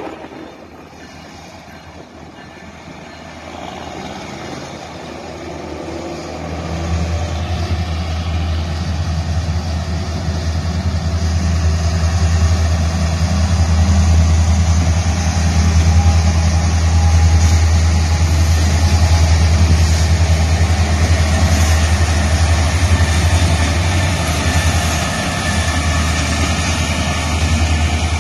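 Diesel freight locomotives approaching and passing close by: a deep engine drone, faint at first, builds from about six seconds in and stays loud as the lead units go by.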